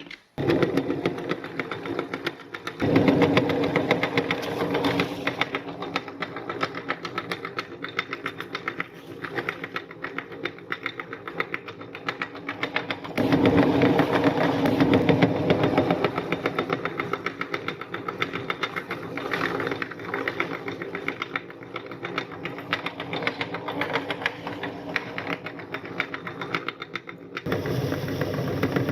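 Electric meat grinder running with a fast, even mechanical rhythm while grinding soft cookies, getting louder for a few seconds about three seconds in and again about halfway through.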